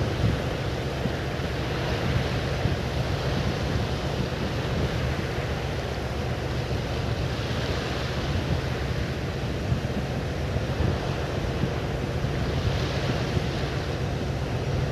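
Steady outdoor rushing noise with a heavy low rumble.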